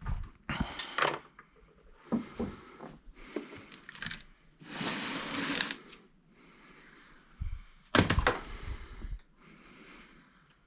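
Small objects being handled on a workbench: a run of clicks and knocks, about a second of rustling noise near the middle, and a louder knock about eight seconds in.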